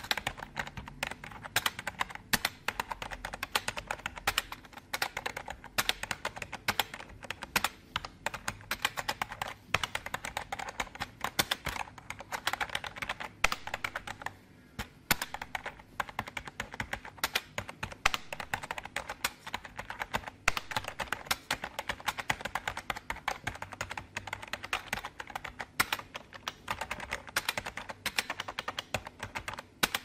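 Typing on a computer keyboard: a fast, irregular stream of key clicks, with a short pause about halfway through.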